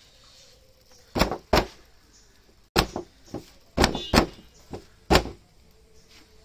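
Hands slapping and clapping a stack of freshly cooked Kerala parottas, a string of sharp slaps often in quick pairs, beating the flatbreads to fluff them and open up their flaky layers.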